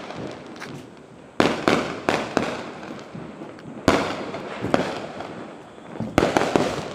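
Diwali fireworks going off: loud sharp bangs coming in clusters every second or two, each trailing off in an echo, with smaller pops in between.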